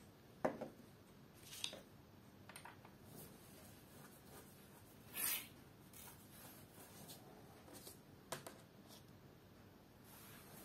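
Faint, scattered taps and a brief rustle as a phone charger, a coiled USB cable, a SIM ejector pin and a clear plastic case are set down on a tabletop one after another.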